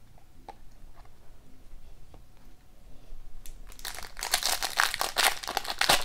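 A foil trading card pack wrapper being torn open and crinkled, loud and rustling from about four seconds in, after a few faint clicks.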